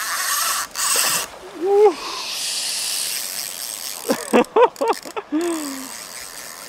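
A fly reel's drag running in spurts as a hooked Atlantic salmon pulls line off against it. Short excited shouts and exclamations come in between, with a quick run of them a little after the middle.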